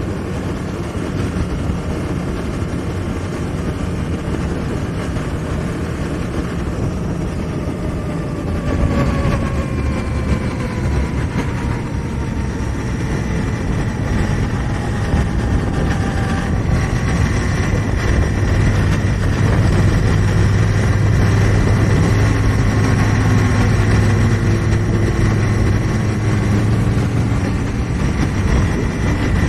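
2018 Honda Africa Twin's 998 cc parallel-twin engine running on the road, mixed with wind rushing past the microphone. About nine seconds in the engine note falls away, then from about eighteen seconds it holds a steady, somewhat louder drone.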